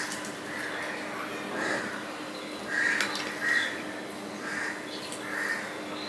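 Crows cawing over and over, short harsh calls in quick runs, with faint clicks and squishing of fingers mixing rice on a plate.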